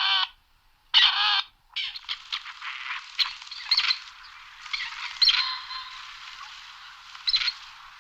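Grey partridge calling: harsh, rasping calls about half a second long, the first at the very start and the next about a second in. These are followed by a few seconds of busier, scratchy chattering and one more short call near the end.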